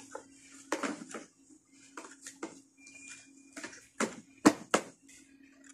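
Plastic clicks and knocks of a Philips vacuum cleaner's filter and housing being handled and fitted in place, a string of scattered taps with the three loudest close together about four to five seconds in, over a faint steady hum.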